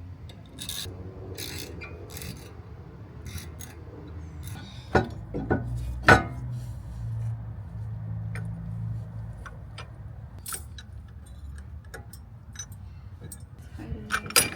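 Light metal clinks and taps as a brake caliper piston compressor tool is fitted into a brake caliper, with a few sharper metal knocks about five to six seconds in.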